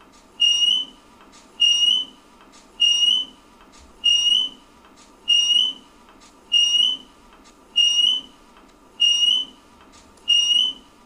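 A high-pitched chirp repeating at a steady rhythm, about once every 1.2 seconds, nine times, each chirp short and rising slightly in pitch.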